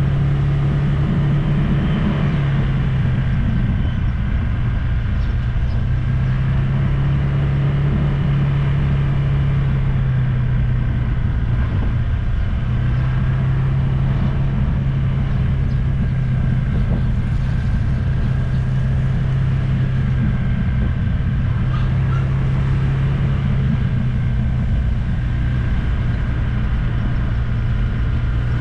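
Engine of a moving vehicle running steadily with road rumble; its low note dips briefly a couple of times, around four and twelve seconds in.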